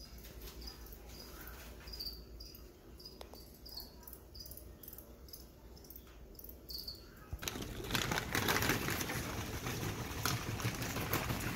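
Feeder crickets chirping in short, repeated chirps. About seven seconds in, louder rustling and clicking handling noise takes over.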